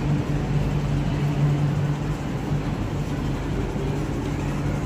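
MTR Island Line Q-Train pulling out of an underground station behind platform screen doors. Its running rumble eases off over the first couple of seconds as the last car leaves, under a steady low hum.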